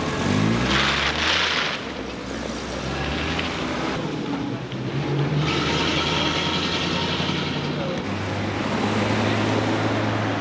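Street traffic: car engines running and passing, one rising in pitch as it accelerates about half a second in. Tyre hiss swells twice as vehicles go by.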